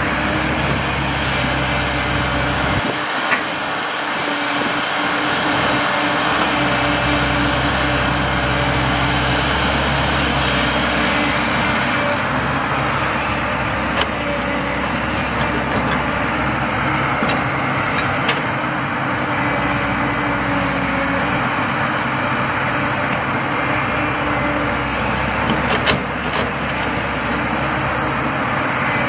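Caterpillar 312C excavator's diesel engine running steadily while it digs and loads soil into a dump truck, with a few short knocks along the way.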